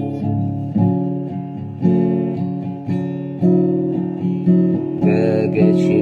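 Acoustic guitar being strummed slowly, a chord about every second, each left to ring into the next.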